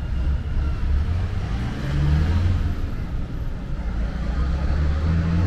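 Road traffic: the low rumble of a motor vehicle's engine, with tyre noise swelling and easing around the middle.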